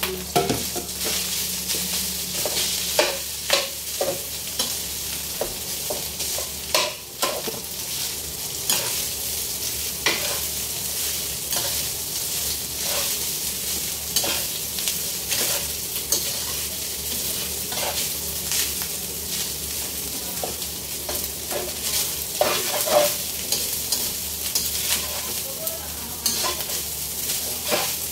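Rice frying in a steel wok with a steady sizzle, stirred and turned by a metal spatula that scrapes and clicks against the pan at irregular intervals.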